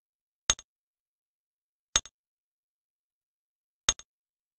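Three sharp keystroke clicks, each followed a moment later by a fainter second click, spaced about one and a half to two seconds apart.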